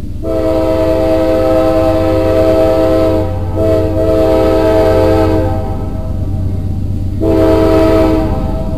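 CSX freight locomotive's air horn sounding a chord as it approaches a grade crossing. There is a long blast, a second blast right after it, then after a pause a shorter third, over the steady low rumble of the oncoming train.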